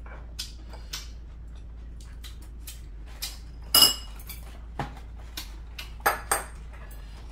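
Spoon and chopsticks clinking against ceramic bowls and plates during a meal: scattered light taps, the loudest about four seconds in with a brief ring, and two more a couple of seconds later.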